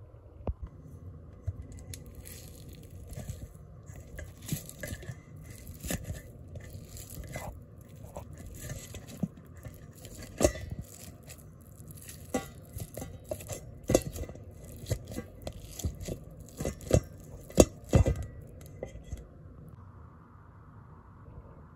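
A metal fork scraping and clinking against a bowl while breaking up canned chicken meat, with irregular sharp clicks among softer scraping, loudest in a run of knocks late on, then stopping shortly before the end.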